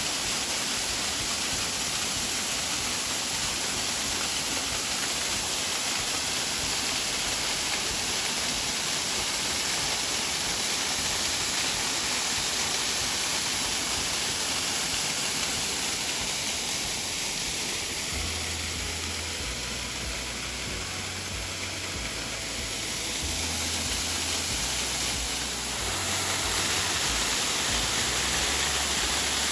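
Waterfall rushing in a steady, unbroken, loud roar of falling water.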